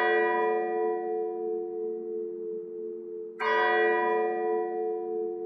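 A deep bell tolling: it sounds at the start and is struck again about three and a half seconds in, each stroke ringing on and slowly fading.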